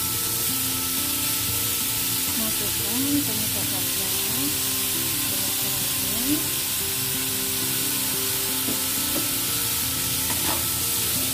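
Asparagus and wood ear mushrooms sizzling steadily in hot oil in a pan as they are stir-fried, with a spatula scraping and tossing them against the pan now and then.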